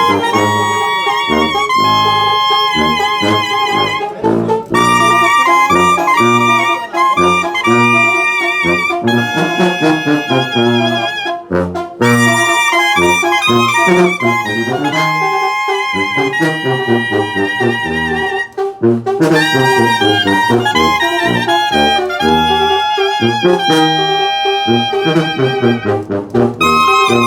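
Sinaloan banda, a brass band, playing live: trumpets and trombones carry held, wavering melody notes over a bouncing bass line.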